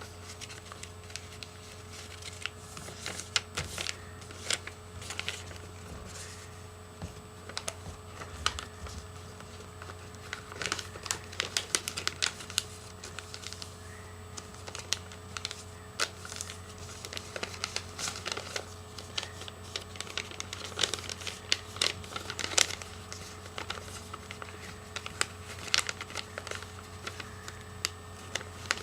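A sheet of paper being folded and creased by hand into a paper airplane: irregular crinkles and crisp snaps of the paper, over a steady hum.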